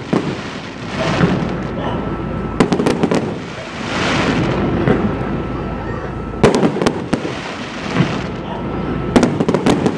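Aerial fireworks bursting: three clusters of sharp bangs a few seconds apart, with a noisy wash between them.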